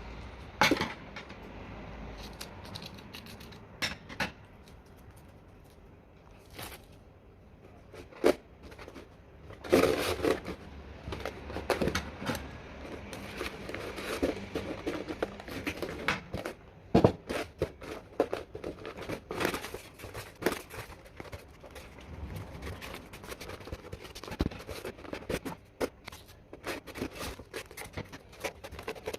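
Irregular clicks, knocks and scraping of objects being handled and worked on.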